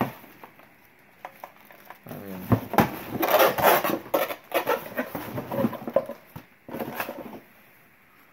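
Hard objects clattering and knocking together with rustling as a box of mixed household items is rummaged through by hand, starting about two seconds in and busiest a second or two later.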